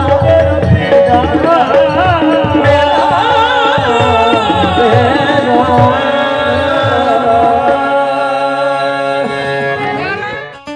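Punjabi Sufi devotional song performed live: an ornamented, wavering vocal line over two harmoniums and drumming. About six seconds in the drumming and singing stop, and the harmoniums hold a final chord that fades out near the end.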